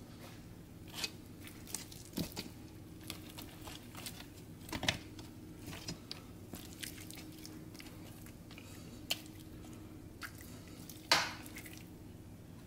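Scattered soft clicks, scrapes and squishes of a metal fork prodding and turning cooked chicken pieces in an air fryer basket, with the loudest knock near the end.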